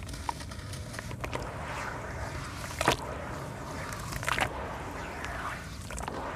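Dry charcoal sand cement crumbled by hand into a tub of water: gritty crumbling and small splashes, with wet sand squished and swished by the hands. Two louder sharp crunches stand out, about three seconds in and again about four and a half seconds in.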